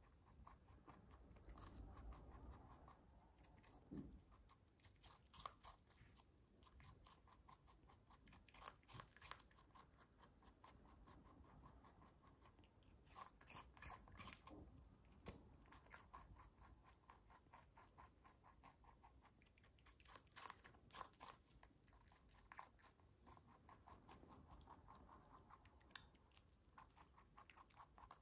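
A lop rabbit chewing raw cucumber: a quiet, fast run of small crunching bites, with louder clusters of crunches every few seconds.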